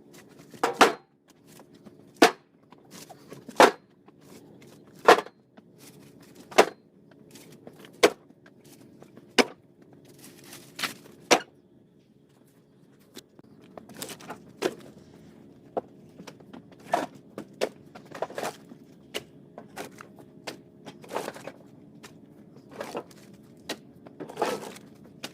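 Pieces of split firewood knocking against each other as they are stacked, one sharp knock about every second, over a faint steady hum.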